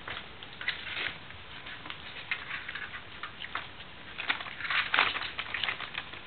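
Siberian kittens scrabbling at play: irregular light scratches, taps and rustles of paws and claws on a plastic ring toy and newspaper, busiest about five seconds in.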